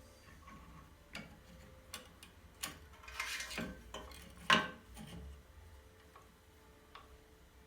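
Scattered light clicks and knocks of small hard objects being handled, with a brief rough scraping about three seconds in and one sharp knock about a second later.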